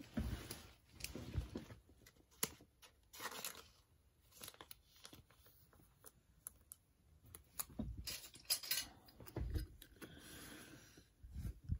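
Trading cards and clear plastic card sleeves being handled: intermittent rustling with scattered light clicks and taps.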